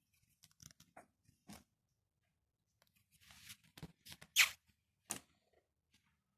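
Scattered short crunchy clicks and scratchy scrapes, with a brief swell of rustle about three seconds in and the loudest sharp scrape just after four seconds.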